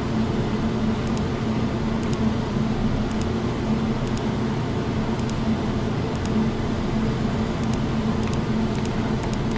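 A laundry machine running nearby: a steady mechanical hum and low rumble that does not change.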